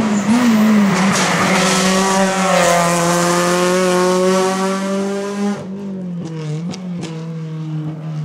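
Renault Clio hillclimb car taking a hairpin at full race pace, its tyres squealing. The engine note wobbles and dips as it brakes and shifts down, then climbs steadily as it accelerates out. It drops away about five and a half seconds in, leaving a quieter, lower engine sound.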